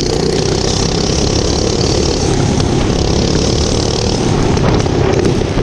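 A small motorbike engine running steadily.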